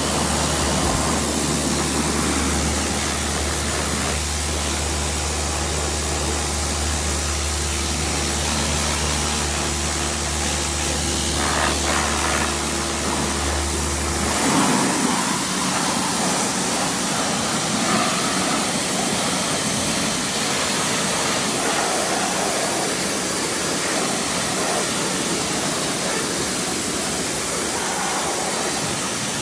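Pressure washer spraying water onto a motorcycle: a steady, loud spray hiss, with the washer's motor humming steadily underneath until about halfway, when the hum drops out and only the spray hiss goes on.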